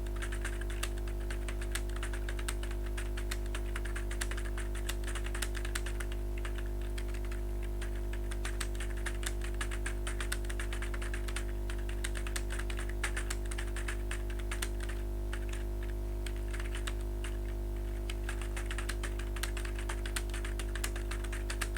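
Fast, continuous typing on a computer keyboard, a dense run of key clicks with no pauses, over a steady low electrical hum.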